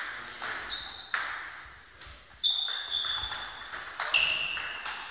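Table tennis rally: the ball clicks off the rackets and bounces on the table in a string of sharp pings, each ringing briefly. There is a pause of about a second before the loudest ping, about two and a half seconds in.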